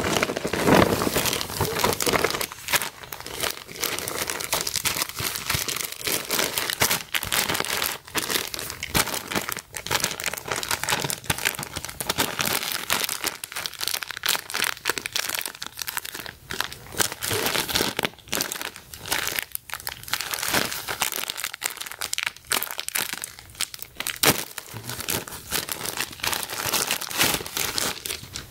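Thin plastic shopping bag and plastic product wrappers crinkling and rustling continuously as they are handled and pulled open by hand.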